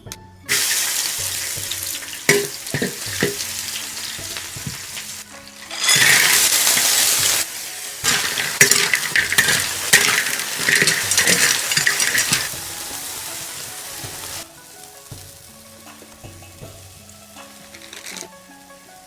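Food sizzling and frying in a hot pan while it is stirred, with short clinks and scrapes of the utensil. The sizzle swells loudest in the middle and dies away about fourteen seconds in, leaving soft background music.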